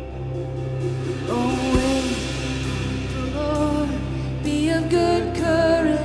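Woman singing long, wavering held notes without clear words over a steady, sustained low keyboard pad in a slow worship song.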